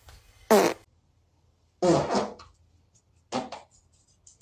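Three short fart sounds, about half a second, two seconds and three and a half seconds in; the middle one is the longest.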